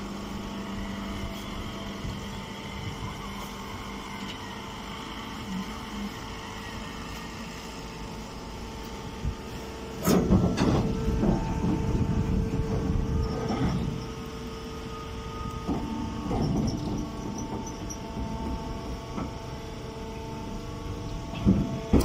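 Hydraulic baling press running with a steady hum of several tones. About ten seconds in, a louder stretch of clattering and rustling lasts some four seconds, and a short knock comes near the end.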